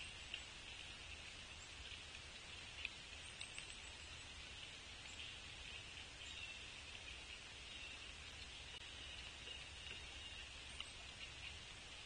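Quiet outdoor ambience at a backyard bird feeder: a steady high hiss with a low rumble underneath, broken by a few faint ticks and taps.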